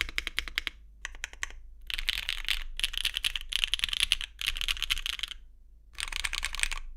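Mechanical keyboard being typed on in quick runs of sharp keystrokes, with a short pause about five and a half seconds in.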